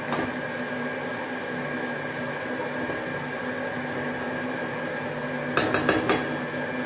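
A metal spatula stirring thin chicken curry in a metal wok over a steady background hum, then a quick run of four or five sharp metallic clicks near the end as the spatula knocks against the wok.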